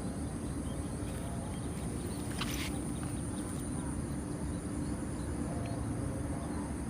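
Outdoor ambience: a steady high-pitched insect drone over a constant low rumble and hum, with a brief rustle about two and a half seconds in.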